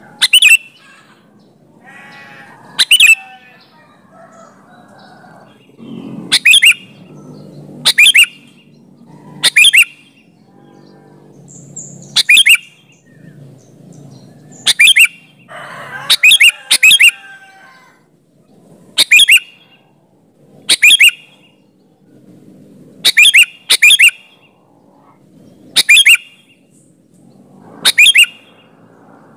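Sooty-headed bulbul (kutilang) calling: short, sharp, high-pitched calls repeated every second or two, sometimes two in quick succession, over faint background chatter.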